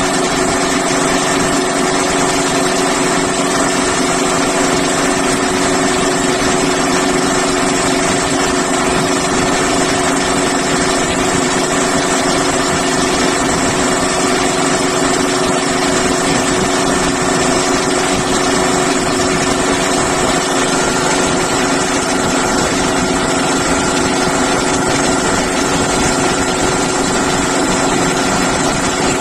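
Breathing-air compressor running steadily while charging an SCBA cylinder with compressed air: a constant mechanical hum of several steady tones over a noisy hiss.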